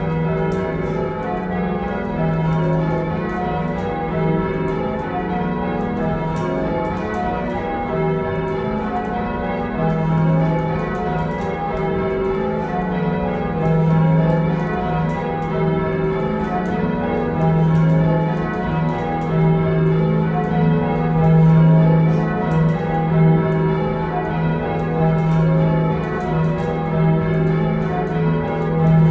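A heavy ring of six church bells, cast by John Taylor & Co in 1925 with the tenor in E-flat, rung full circle in changes. The strokes follow one another in a steady, unbroken rhythm, each overlapping the ringing of the last, heard from the ringing chamber below the bells.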